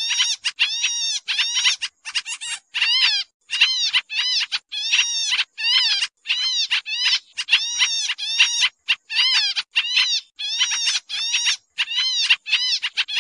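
Pied triller (kapasan kemiri) calling busily, as on a bird-lure recording: a rapid, unbroken series of short calls, about two or three a second, each with a quick rise and fall in pitch.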